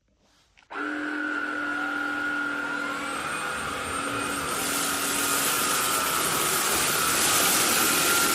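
SilverCrest SHAZ 20 A1 20 V cordless cyclonic vacuum cleaner switched on a little under a second in, its motor then running steadily with a whine and a rush of air.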